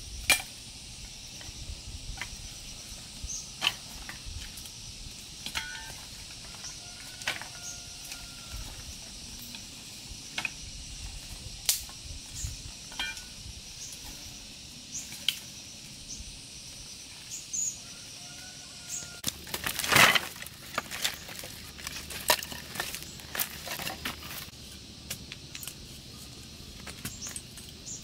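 Scattered sharp knocks and clicks every second or two over a steady faint high hiss, with a denser run of clattering knocks about twenty seconds in and a couple of short high tones.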